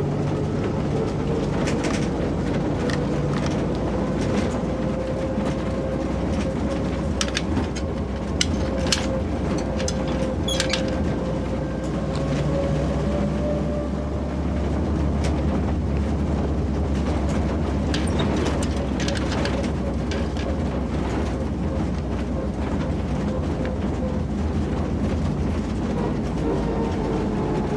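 A railway car in motion, heard from inside: a steady low rumble with scattered clicks and rattles and a running hum that rises a little and then sinks.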